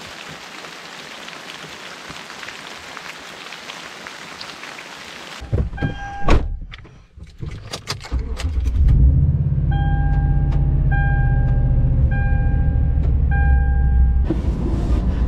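Freezing rain falling steadily for about five seconds, then a few thunks of a truck door shutting. About eight seconds in, a Toyota truck's engine starts and idles steadily, and a dashboard warning chime dings four times, about a second apart.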